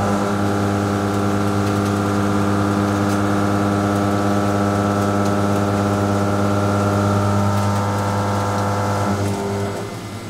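Walter M3024 heptagon face mill with six inserts finish-milling 42CrMo4 alloy steel on a CNC machining centre: a steady pitched hum from the cut that fades away about nine seconds in as the cutter leaves the work.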